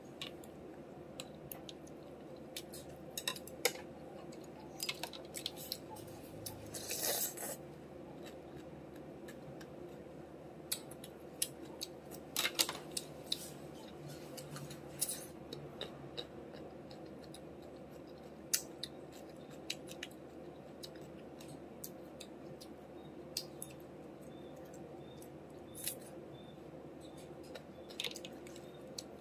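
Close-up eating sounds: scattered sharp clicks of chopsticks and a spoon against a ceramic bowl, with chewing and the crunch of green mango. A steady background hum runs underneath.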